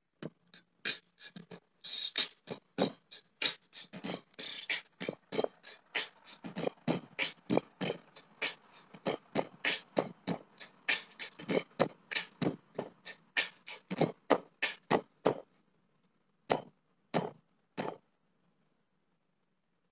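A run of short percussive hits in a beat pattern, about two to three a second, thinning out to three spaced hits near the end.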